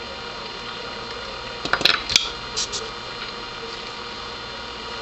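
Handling noise on the workbench: a quick cluster of sharp clicks and taps about two seconds in, then two lighter taps, as the tweezers and hand tools are put down. A steady hiss runs underneath.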